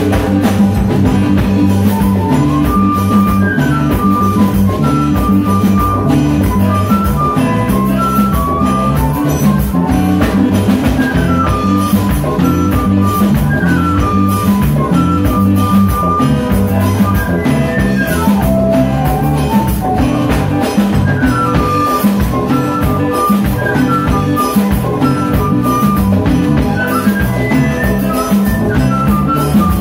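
Live band playing an upbeat Caribbean number: a flute carries the melody in short stepping phrases over drum kit, bass guitar and hand percussion.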